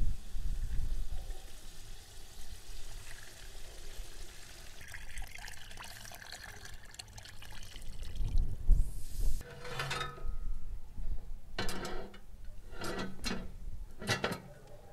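Water poured from a plastic jug into a cast-iron cauldron of simmering meat sauce, splashing and trickling for a few seconds. After about ten seconds come several sharp metal clanks at the pot.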